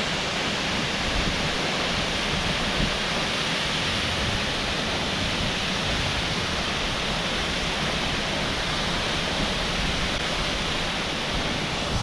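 Tall alpine waterfall, the Cascade du Rouget, rushing steadily: a dense hiss of falling water with a deep rumble underneath.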